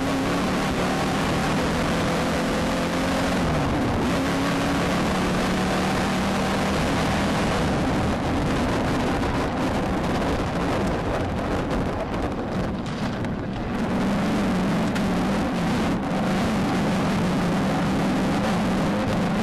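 Engine of a VW Beetle-based off-road race car running hard, heard from inside the car over heavy rumbling road and wind noise. The engine note drops in pitch a few seconds in, is buried under the rough rumble for several seconds in the middle, then comes back steady.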